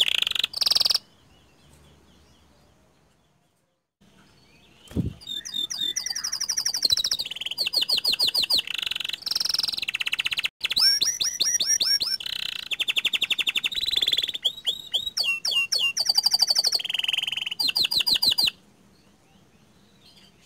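Pied ('panda') domestic canary singing long phrases of rapid rolled trills, fast runs of repeated high sweeping notes. The song breaks off about a second in, comes back after a few seconds of quiet with a dull thump just before it, then runs on and stops shortly before the end.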